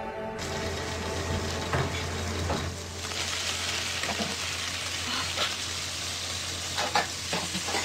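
Rolled taquitos frying in a pot of hot oil: a steady sizzle that sets in abruptly just after the start, with a few light clicks.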